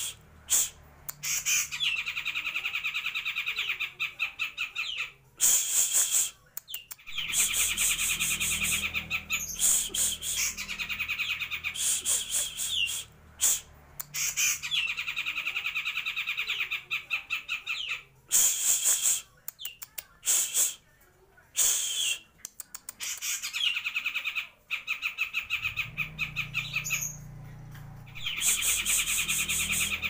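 Cucak jenggot (grey-cheeked bulbul) singing in full voice: loud phrases of a couple of seconds each, made of very fast trilled notes, repeated over and over with short pauses between them.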